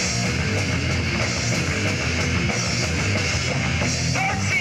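Live rock band playing loud and without a break: electric guitar and drum kit with cymbals.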